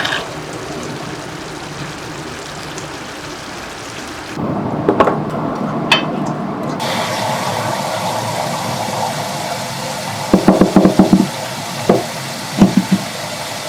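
Ragu sauce ingredients sizzling in a pan. The sizzle grows louder and brighter about four seconds in, and a utensil knocks against the pan a few times, with a quick run of knocks near the end.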